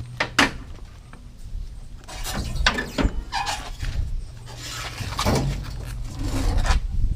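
Spare tire being pulled out from under a Mercedes-Benz Sprinter van: knocks, clinks and scraping, in clusters near the start, about two and a half seconds in, and again from about five seconds.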